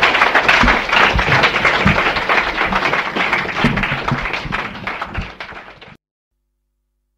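Audience applauding with dense clapping that gradually thins out and then cuts off abruptly about six seconds in.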